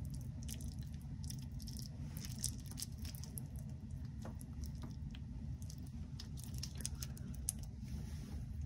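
Hands working soft, sticky food, most likely rice being shaped: soft squishing with many small crackly clicks, over a steady low hum.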